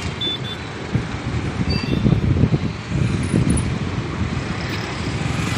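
Wind buffeting the microphone in uneven gusts over the running of a motorbike and surrounding street traffic, as heard while riding.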